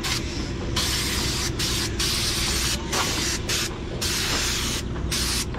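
Compressed-air blow gun blasting debris out of freshly caulked deck seams, hissing in repeated bursts of under a second to over a second, over a steady low hum.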